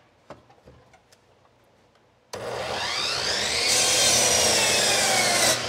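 Corded miter saw started after a few light clicks of handling: the motor whines up in pitch, then the blade cuts into a wood block, adding a harsh cutting noise while the motor's pitch sags under the load. Near the end the trigger is released and it drops off.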